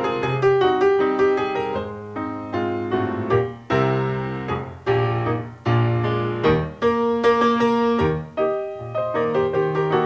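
Background music: piano playing chords over bass notes, each note struck and dying away.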